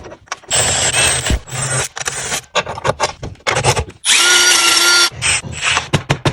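Power tool running in short bursts with a motor whine, the longest burst about a second long; near the end a rapid even run of ticks, about five a second.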